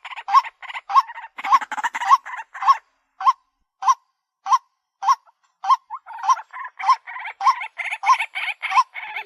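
White-breasted waterhen calling: a loud 'kwak' repeated about twice a second, with harsh, rasping chatter between the calls that drops out for a couple of seconds midway and then returns.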